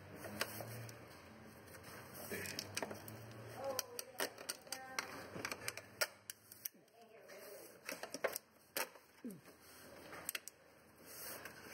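Hand ratchet and socket working bolts on a diesel engine's top cover: scattered light metallic clicks and taps, with a short run of quick ratchet ticks near the middle.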